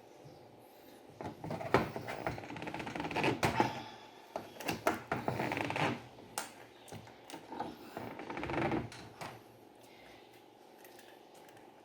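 Bursts of rapid clicking and scraping from metal parts of an Electrolux LTE12 washing machine's drive mechanism being tightened and handled during reassembly. The bursts come in several spells and die down near the end.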